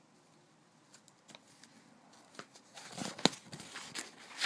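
Paper packing slip being handled and rustled, with a few short clicks and taps, the sharpest about three seconds in; the first two seconds are nearly quiet.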